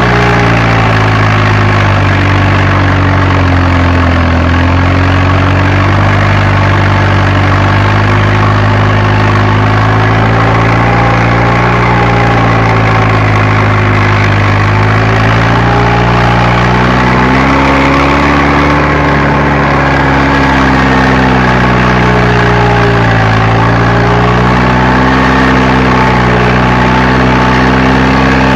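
Fiat Agri tractor's diesel engine running steadily while pulling a tillage implement, heard from the cab. Its pitch sags and recovers slowly a few times as the load changes, dipping about four seconds in and again near the end, and rising a little past the middle.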